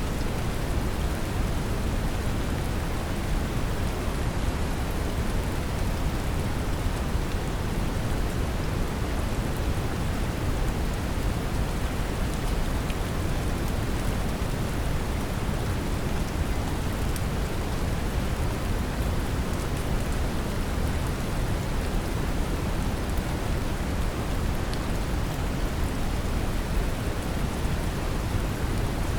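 Steady brown noise, deep and strongest in the lows, mixed with gentle rain falling, unchanging throughout.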